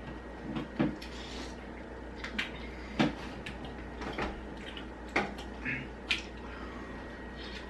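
Two people sucking and biting into lemon wedges: a scattering of short, sharp slurps and mouth clicks, about seven in all, over a steady low hum.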